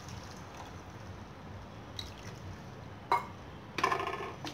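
Water poured from a steel tumbler into a pan of cooking chicken masala, splashing onto the food. A few short metallic clinks of utensils against the pan come near the end.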